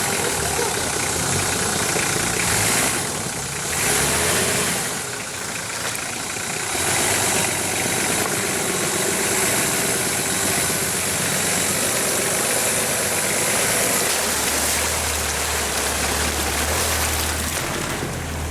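Off-road 4x4's engine running and revving under load, under a loud, steady rushing noise. The low engine note grows stronger about two thirds of the way through.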